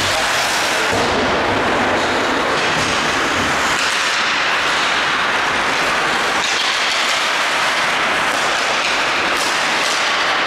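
Ice hockey rink ambience during play: a steady hiss of skates on the ice and hall noise, with a few faint knocks of sticks or puck.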